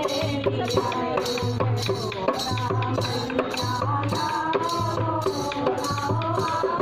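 Women singing a devotional folk song to a dholak, the two-headed hand drum keeping a steady beat, with a bright rattling percussion striking in time.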